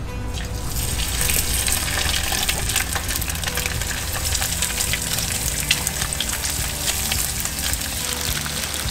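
Almaco jack fillets sizzling and crackling in hot olive oil in a skillet. The frying starts about half a second in as the first fillet goes into the pan and keeps up a steady hiss.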